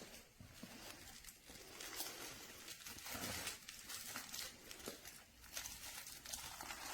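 Crinkle lining inside a plush dog toy being squeezed and handled, an irregular crackly rustling.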